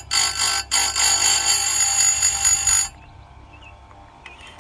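Electric chainsaw-chain grinder's spinning wheel grinding a cutter tooth: a loud, high-pitched grinding screech with brief breaks in the first second. It cuts off suddenly about three seconds in, leaving a faint steady hum.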